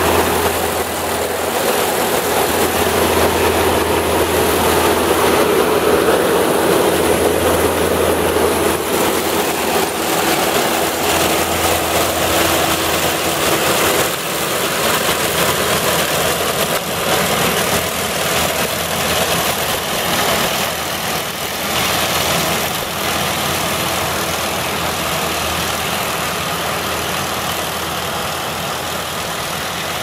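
Half-feed combine harvester running steadily as it cuts and threshes wheat, its engine and threshing mechanism making a continuous machine noise. It grows gradually quieter over the last several seconds as the machine moves away.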